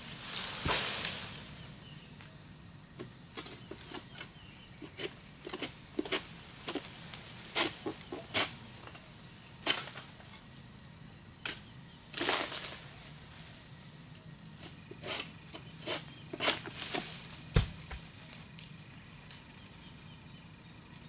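Egrek, a long-poled harvesting sickle, cutting at an oil palm's frond stalks: a dozen or so irregular sharp cutting and cracking strokes, the loudest near the end. Behind them runs a steady high insect chorus.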